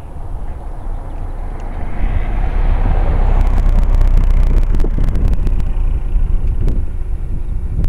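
A car passing close by at low speed: its tyre and engine noise swells about two seconds in and peaks as it goes past. A run of sharp clicks comes at the loudest point, over low wind rumble on the microphone.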